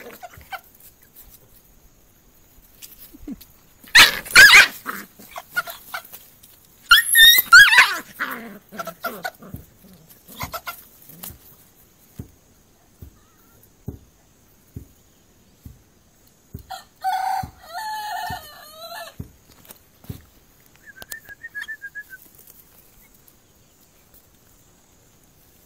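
A chicken squawking harshly as a puppy grabs and tussles with it. There are two loud cries about four and seven seconds in and a shorter pitched cry later, with light scuffling taps between.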